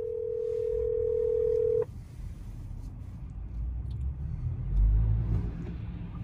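Telephone ringback tone of an outgoing call: one steady ring of about two seconds that cuts off sharply, meaning the other phone is ringing and not yet answered. After it, the car's low road rumble.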